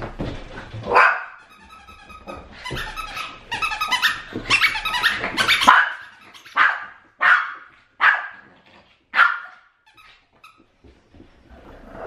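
Shih Tzu barking in excited play at a toy held out of its reach: a quick run of barks, then four single sharp barks about a second apart.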